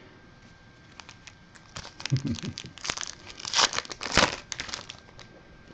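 Trading card pack wrapper being torn open and crinkled by hand: a run of crackling rustles and ticks, loudest about three and a half to four seconds in.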